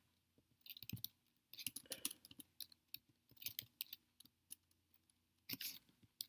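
Computer keyboard being typed on, faint key clicks in several short bursts with pauses between.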